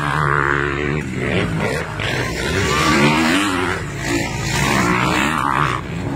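Motocross dirt bike engines revving hard, the pitch climbing and dropping as the riders accelerate and shift gears going past.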